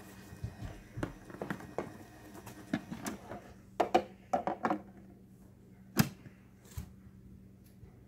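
Plastic clicks and knocks of a toddler handling a toy microwave, pressing its buttons and working its door. A quick cluster of louder clacks comes about four seconds in, and one sharp click about six seconds in.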